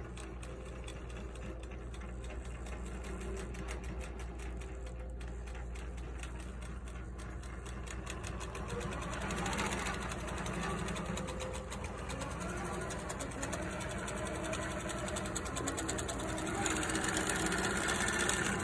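Long-arm quilting machine running and stitching, with a fast, even needle rhythm that grows a little louder near the end.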